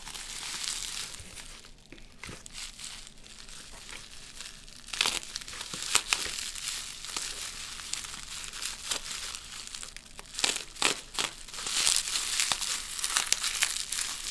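Plastic bubble wrap crinkling and rustling as it is unwrapped by hand, with sharper crackles and snaps about five seconds in, again near ten seconds, and more densely near the end.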